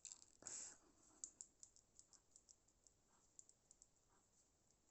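Near silence with faint small clicks and a brief scrape about half a second in: a stuck stopper being worked at on a bottle of Glue 'n Glaze.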